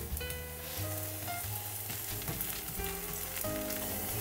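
Thin flatbread batter frying in an oiled nonstick pan with a steady sizzle, while a plastic spatula slides under the bread. Background music plays along.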